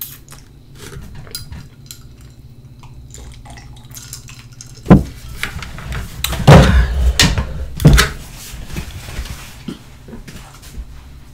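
Tableware being handled on a table: a few sharp knocks and clatter of plates and a cup, with rustling. The knocks come about five seconds in, again at six and a half and eight seconds, and the rustling fades after that.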